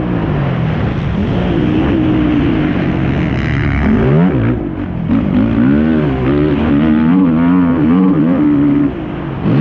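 Yamaha YFZ450R quad's single-cylinder four-stroke engine revving hard and easing off over and over under racing throttle, its pitch rising and falling every second or so.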